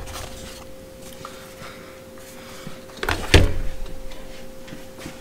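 Handling of a plastic blister-packed flashlight, with a loud thump and crackle about three seconds in as the package is set down on a table.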